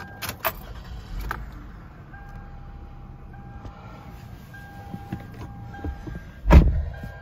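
2006 Toyota Avalon's V6 engine starting about a second in after a few key clicks, then idling with a low steady hum. The seatbelt reminder chimes in a repeating two-tone beep about once a second because the driver's belt is unfastened. A loud thud near the end.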